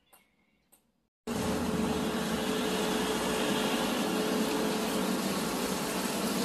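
Two faint clicks in a near-silent room, then, about a second in, a sudden switch to steady, loud street noise of road traffic.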